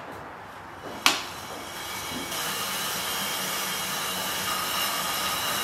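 A sharp click about a second in, typical of a cycling shoe cleat snapping into a clipless pedal, then a road bike's tyres and rollers start to whir steadily as the bike is pedalled on indoor training rollers.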